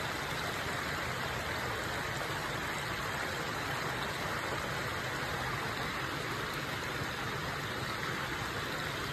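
Steady rushing of a stream's running water, even and unbroken throughout.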